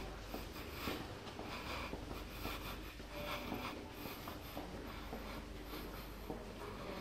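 Footsteps of someone walking through an enclosed pedestrian tunnel, roughly two steps a second, mixed with scratchy rubbing noise from the hand-held camera, over a low steady hum.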